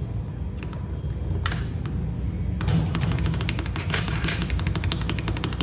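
Mechanical keyboard keys capped with XDA-profile keycaps being pressed: a few separate keystrokes, then from about two and a half seconds in a fast, dense run of key presses. The sound is very deep and tight.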